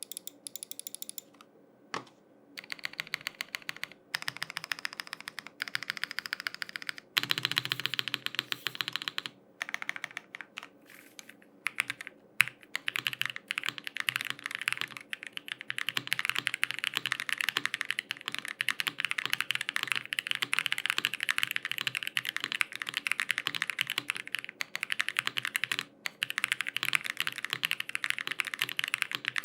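Continuous typing on a custom acrylic-case mechanical keyboard with lubed and filmed WS Yellow switches: a dense stream of keystroke clacks, broken by a few short pauses.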